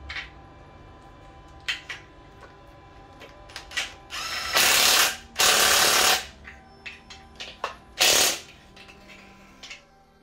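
Cordless impact driver with a socket extension run on gearbox bolts in two bursts of about half a second each around the middle and a shorter one near eight seconds. Metallic clicks and clinks of the socket and tools come before and between.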